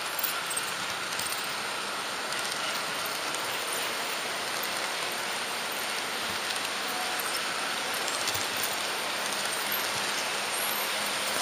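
HO-scale model train running along the layout track: a steady rushing hiss of small wheels on the rails, with faint scattered clicks.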